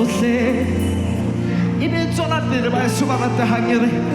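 Gospel worship music with steady held chords underneath and a voice singing wordless, wavering runs in the second half.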